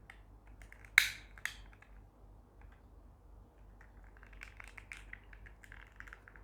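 Plastic parts of a gas lighter being handled: one sharp click about a second in, a smaller click just after, then a run of faint small clicks and rattles.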